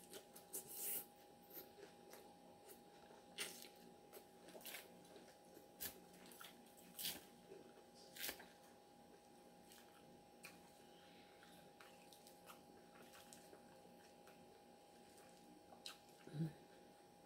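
Faint close-up chewing and mouth sounds of someone eating salad: scattered short crunches, smacks and clicks, busier in the first half and sparser later, over a faint steady hum.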